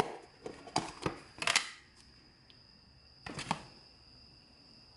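Plastic margarine tub handled and its lid pulled off, a cluster of sharp clicks and rustles in the first second and a half, then a knife scraping spread out of the tub a little past three seconds in.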